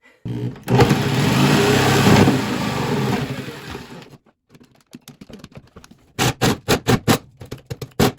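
Power drill running under load, cutting the toilet drain hole, its pitch sagging after a couple of seconds before it stops. Near the end comes a quick run of sharp knocks, about five a second.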